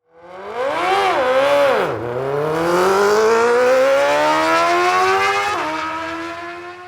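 Vehicle engine revving hard: its pitch rises and falls about a second in, drops at a gear change near two seconds, then climbs steadily in a long pull before dropping again and fading out near the end.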